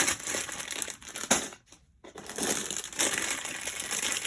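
Plastic LEGO parts bags crinkling and rustling as they are handled and sorted, with a short pause about a second and a half in before the crinkling resumes.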